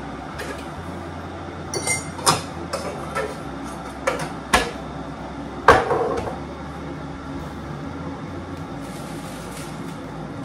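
A few sharp knocks and clatters of a container, lid and cup being handled on a kitchen worktop, the loudest about six seconds in with a short ring. A low steady hum runs underneath.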